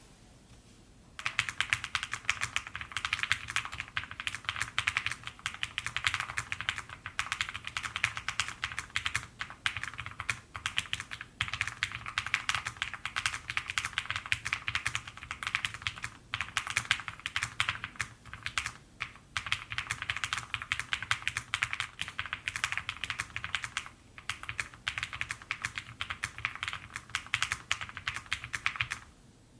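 Fast typing on an IQUNIX MG65 Pro low-profile mechanical keyboard: a dense run of creamy key clacks that starts about a second in and pauses briefly now and then.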